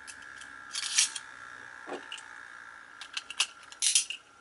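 A Beyblade Burst top spinning in a plastic stadium with a steady high whir, and about three seconds in a quick run of sharp plastic clicks as a toothed ripcord is fed into a Beyblade launcher.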